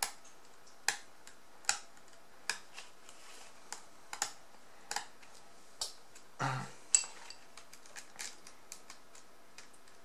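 Steel screwdriver clicking against a stuck screw in a laptop's metal hard-drive caddy: sharp, irregular clicks about once a second as the screw keeps turning without coming out.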